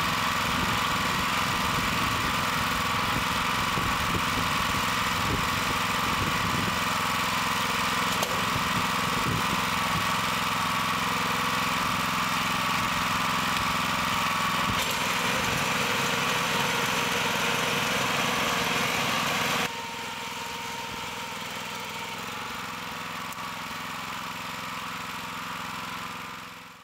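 Small petrol engine of a two-wheel tractor running steadily, driving a mini round baler while the finished bale is wrapped in netting. About twenty seconds in the sound drops suddenly to a quieter, steady drone.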